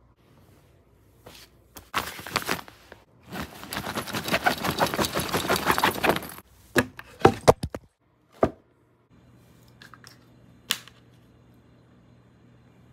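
Rustling and clicking from clothes and a fabric bag being handled while packing, with a dense run of rapid ticking for about three seconds in the middle. A few separate knocks follow, then only a low hum with an odd click.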